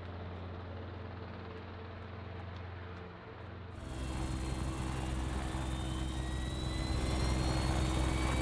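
A steady low hum with a few faint clicks, then, about four seconds in, the loud rushing noise of the Pitts Special biplane's two small jet turbines warming up, with thin whines rising slowly in pitch over a steady low engine drone.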